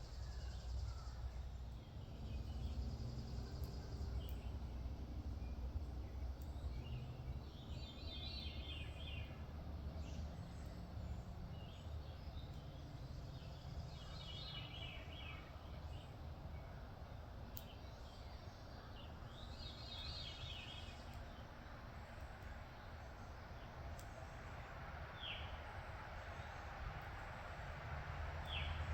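A songbird sings short song phrases about every six seconds, with two brief downslurred notes near the end, over a steady low background rumble.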